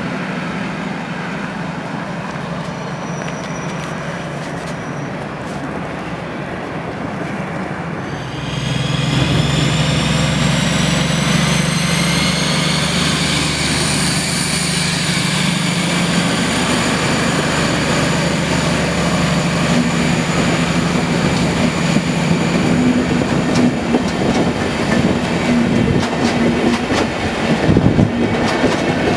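DB class 218 diesel-hydraulic locomotive, MTU TB 11 engine, pulling away at full power (notch 15): from about eight seconds in the engine and its turbocharger whine start suddenly and climb in pitch for several seconds, then hold steady. Before that a train runs with a steady low rumble, and near the end the coaches' wheels clatter over the rail joints.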